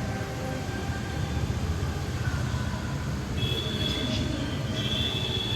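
Train running along the rails, a steady low rumble. A faint high squeal comes in twice in the second half.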